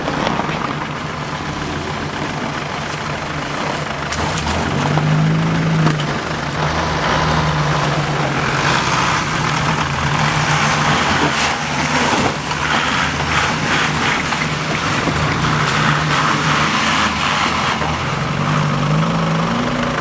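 Vehicle engines straining as a car and then a Volkswagen Transporter van drive over a bumpy, icy hump, the revs rising about five seconds in and again near the end. Through the middle, tyres churn and spin in wet slush and ice.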